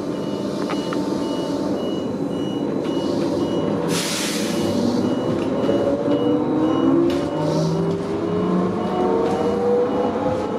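Interior of a Neoplan AN440LF-ETB electric trolleybus on the move: a quick, steady beeping that stops about seven seconds in, and a short burst of air hiss about four seconds in. From about six seconds on, the electric traction motor's whine rises steadily in pitch as the bus gathers speed.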